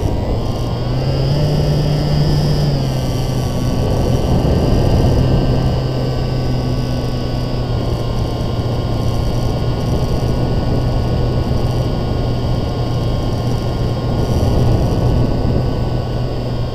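Model airplane's motor and propeller running, heard from a camera riding on the aircraft, with wind rushing over the microphone. The pitch rises about a second in and drops back a couple of seconds later, then holds steady.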